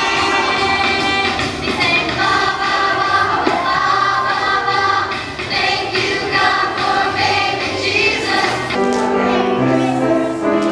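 A choir of young children singing together over a musical accompaniment, the low accompaniment notes coming through more clearly near the end.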